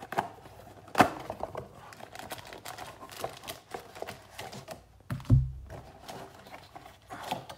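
Trading-card packs in foil wrappers being pulled out of an opened cardboard box: a string of small clicks, taps and rustles, with a sharp knock about a second in and a dull thump a little after five seconds.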